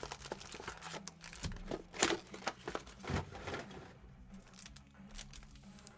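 Sealed foil trading-card packs crinkling and rustling as they are handled out of a cardboard hobby box and laid on a table, with a few sharper rustles about two and three seconds in and quieter handling after that.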